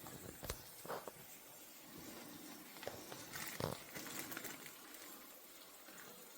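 Steak searing in a hot pan, a faint steady sizzle, with a few light knocks of kitchen utensils.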